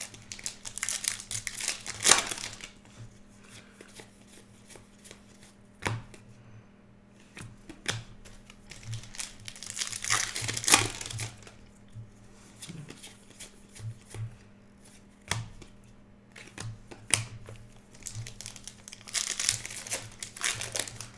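Foil trading-card pack wrappers torn open and crinkled by hand in three spells, with short clicks and taps of the cards being handled in between.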